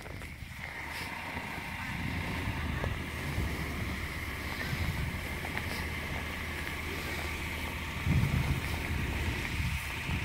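A 2016 Hyundai Santa Fe AWD running as it pulls out of a snowed-in parking space, its engine humming steadily and its tyres working through the snow, with a louder rumble about eight seconds in.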